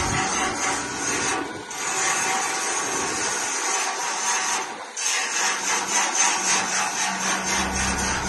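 Cordless drill running against the combine's sheet-metal panel, a steady grinding whir broken by two short pauses.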